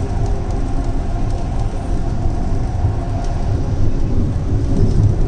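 Hyderabad Metro electric train running at speed between stations, heard from inside the carriage: a steady low rumble of wheels on rail with a faint even hum over it.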